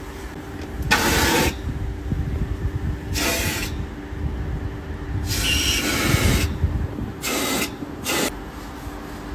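Five short blasts of compressed air hissing over the steady hum of a running engine or compressor. The longest blast comes a little past the middle, and the last two are quick.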